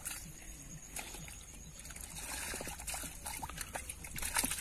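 Hands digging and groping through wet pond mud, with irregular small squelches and splats and a louder cluster of them shortly before the end.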